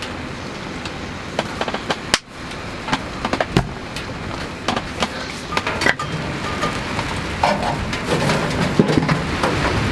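Wood-burning stove fire crackling, with scattered sharp clicks and small knocks. There is a brief dip about two seconds in, and a low rushing noise grows over the last couple of seconds.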